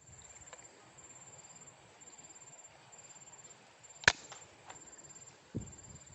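A single sharp shot about four seconds in, the crack of a hunting air rifle, over insects trilling high in repeating pulses.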